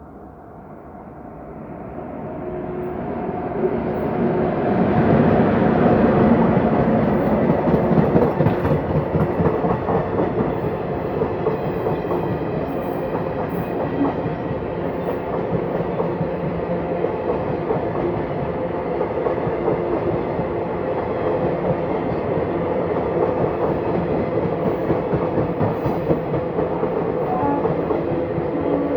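Indian Railways express train approaching and passing at speed. It grows louder over the first few seconds, then the coaches keep clattering steadily over the rail joints as they roll by.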